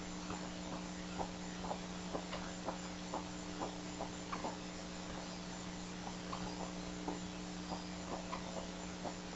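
Bald eaglets giving short, squeaky begging calls at feeding, about two a second, over a steady electrical hum.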